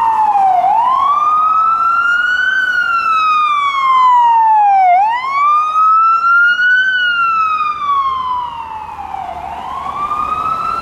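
Ambulance electronic siren in wail mode: a slow tone that rises quickly and falls more gradually, cycling about every four seconds, two and a half times through.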